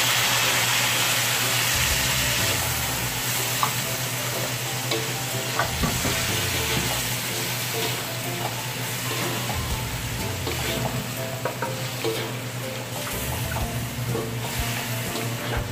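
Marinated beef chunks sizzling in hot oil in an aluminium wok, loudest as the meat goes in at the start and then settling a little. Wooden and slotted spatulas scrape and tap against the pan as the meat is stirred.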